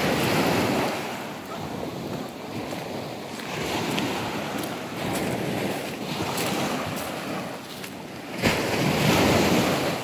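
Small sea waves breaking and washing up over a sandy shore in repeated surges, with wind buffeting the microphone; the strongest surges come at the start and near the end.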